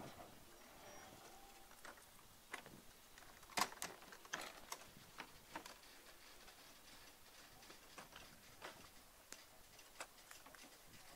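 Faint, irregular clicks and knocks from LNER teak-bodied railway coaches rolling slowly past on the rails, the loudest pair a little past a third of the way in.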